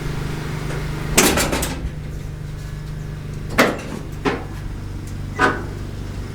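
Metal clunks and knocks from the hood of a 1972 Dodge B200 van being unlatched and lifted open: a cluster of clunks about a second in, then three sharper single knocks, over a steady low hum.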